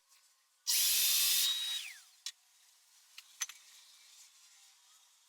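Makita LS1019 miter saw's motor running in a short, loud burst of under a second, then spinning down with a falling whine. A few faint clicks follow.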